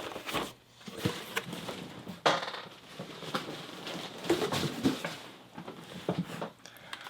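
Brass padlocks and keys clinking and knocking together as they are handled, in scattered short clicks with a sharper knock about two seconds in.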